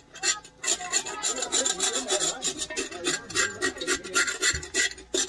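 Metal spoon scraping the crust of toasted rice (concón) off the bottom of a large aluminium cooking pot, in quick repeated rasping strokes.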